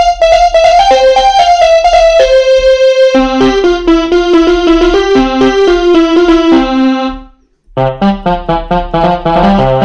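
Kawai FS660 portable electronic keyboard playing a melody of short, bright, pitched notes. About seven seconds in it stops for a moment, then starts again with lower bass notes under the tune.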